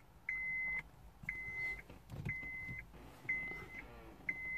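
Car's instrument-cluster warning chime beeping five times, one short high-pitched beep about once a second.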